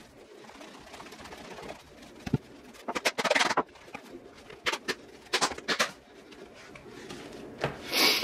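The stiff new leather of a Wilson A2K MB50 baseball glove being squeezed and folded by hand on a foam pad during break-in, giving short bursts of leather creaking and rubbing. There is a thump a little over two seconds in and a louder rustle near the end.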